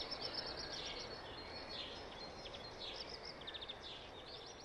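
Faint birds chirping over a soft background hiss, with a quick run of rapid chirps a little past the middle.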